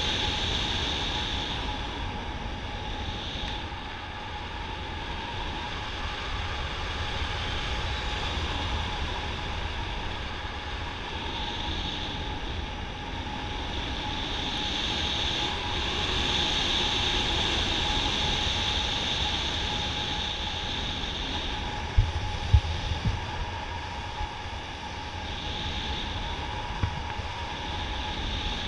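Airflow of a tandem paraglider in flight rushing over the camera's microphone: a steady wind noise with a deep rumble that swells and eases. A few short knocks come about three-quarters of the way through.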